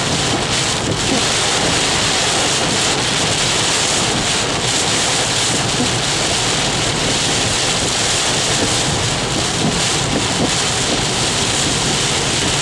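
Heavy thunderstorm rain and wind making a steady, loud rush.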